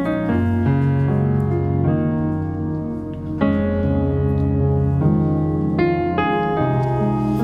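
Slow piano chords played on an electronic keyboard, with a held bass note beneath and a new chord every second or two.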